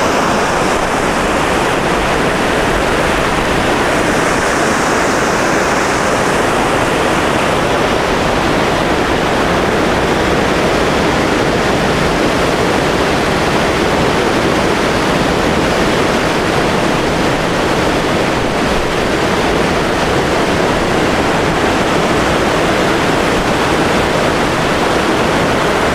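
River whitewater rushing steadily over rocks in a rapid, the river running high.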